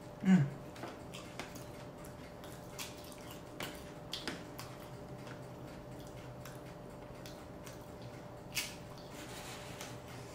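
Person chewing a club sandwich with the mouth close to the microphone: scattered soft wet clicks and smacks, with a faint steady hum underneath.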